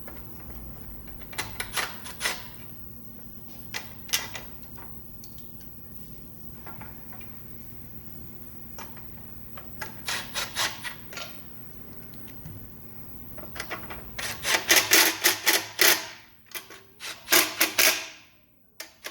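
Hand ratchet clicking in short runs of quick, even strokes while the bolts holding the recoil starter housing onto the generator are driven in, the longest and loudest run near the end.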